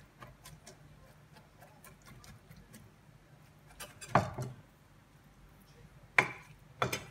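Chef's knife mincing prawns and zucchini pulp on a wooden cutting board: quick light taps of the blade, several a second, then three louder knocks in the second half.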